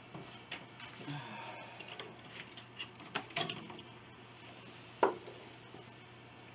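Light wooden clicks, knocks and scrapes as thin wooden strips are handled and worked free on an old piano's soundboard. A cluster of sharper clicks comes about three seconds in, and a single loud knock about five seconds in.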